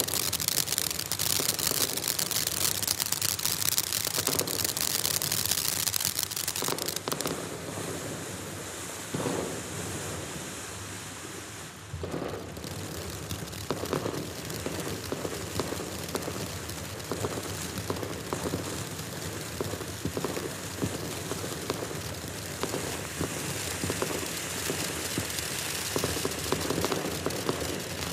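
Black Cat 'Cat Fight' firework fountain burning, a steady spray hiss full of rapid crackling pops. The hiss is loudest for the first several seconds, then drops about seven seconds in while the crackling carries on.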